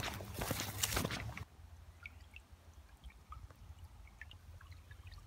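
Footsteps crunching through dry grass and straw. About a second and a half in they cut off suddenly, leaving a faint creek trickling with scattered small drips.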